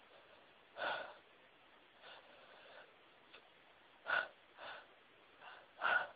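A person's sharp, breathy gasps as a sneeze builds up, about six of them, coming closer together near the end, with the sneeze still held back.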